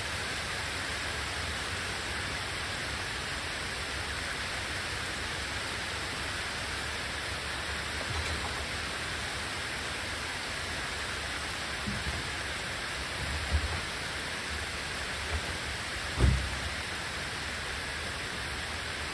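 Steady rain coming down pretty good, an even hiss, with a few short dull thumps in the second half.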